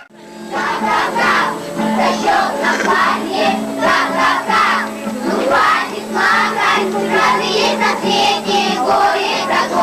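A group of children singing a song to musical accompaniment, starting right after a sudden cut in the sound.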